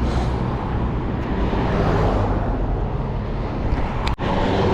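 Vehicle engine running steadily close by, a low hum under a continuous rushing noise, with a sudden brief drop-out about four seconds in.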